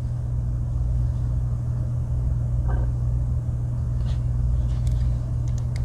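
Steady low background hum, with a few faint light clicks in the second half.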